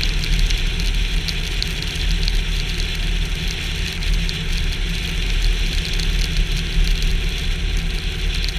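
Subaru car driving at a steady speed on a snow-covered road, picked up by a camera mounted outside on the hood: a steady low rumble of engine, tyres and wind, with an even hiss and faint scattered ticks.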